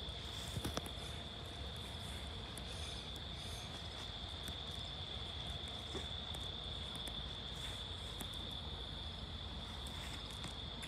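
Crickets trilling steadily on one high, unbroken note, over a low rumble, with a few faint clicks about a second in.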